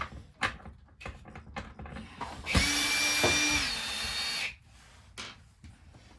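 Battery drill running for about two seconds as it backs out a screw, a steady whine that drops a little in pitch partway through, after a few light handling clicks.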